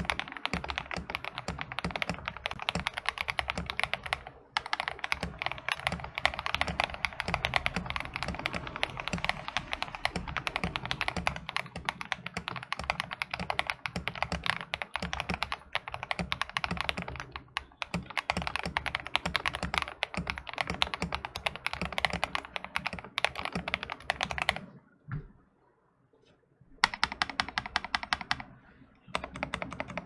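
Fast continuous typing on a Tester 68 mechanical keyboard with lubed Akko Rose Red linear switches and tape and foam mods: a dense run of rapid keystrokes. The typing stops for about two seconds near the end, broken by a single keystroke, then resumes.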